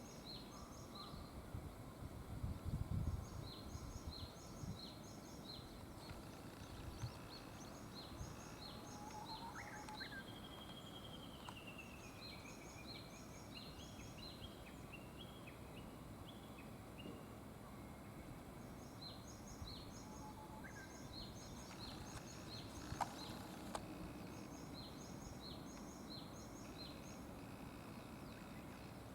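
Green pheasant giving its harsh crow once, about three-quarters of the way through. Faint rapid high chirping repeats steadily throughout, with a falling whistle near the middle.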